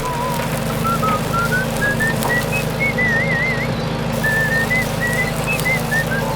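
A whistled tune of short notes stepping up and down, with one wavering held note about three seconds in, over a steady low hum.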